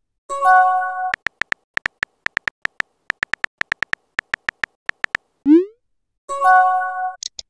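Phone keyboard tap clicks in quick runs while a text message is typed. A short rising whoop of a message being sent comes about five and a half seconds in. A short electronic chime of several steady tones sounds twice, near the start and about six seconds in.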